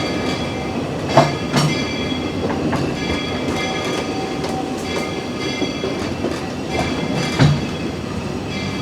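Walt Disney World Railroad steam train cars rolling along the track with a steady rumble, a faint thin high ringing, and a few sharp wheel clacks over the rails, about a second in and again near the end.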